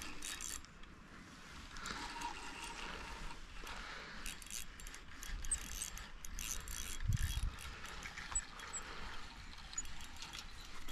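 Fishing reel ticking and whirring in irregular runs of clicks as a hooked fish is played and the line wound in, with one dull low thump about seven seconds in.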